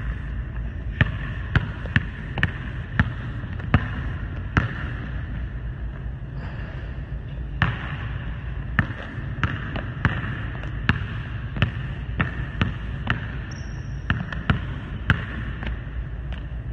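A basketball bouncing on a hardwood gym floor as it is dribbled, about two sharp bounces a second, with a pause of a couple of seconds in the middle. A steady low hum sits under it, and a brief high squeak comes near the end.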